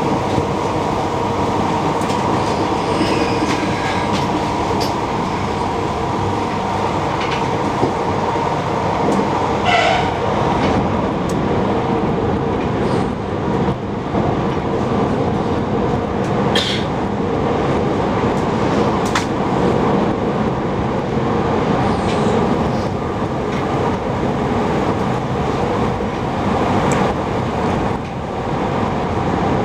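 Passenger train running along the line, heard from inside the carriage: a continuous rumble of wheels on rails with a steady hum and a few sharp clicks.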